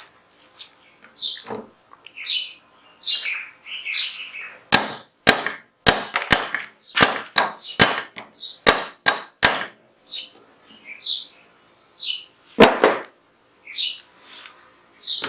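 Sharp metallic clinks and taps from steel pistol parts being worked on during disassembly of a Zigana 36 9mm pistol. There is a quick run of about ten strikes a few seconds in and one louder knock near the end.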